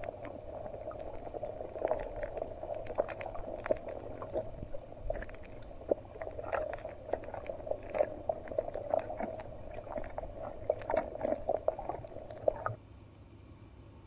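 Underwater sound over a shallow coral reef: a steady muffled water hum with many irregular crackles and clicks, stopping suddenly near the end.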